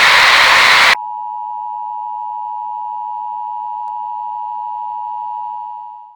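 Loud static hiss that cuts off abruptly about a second in, followed by the steady two-tone Emergency Alert System attention signal, which fades out near the end.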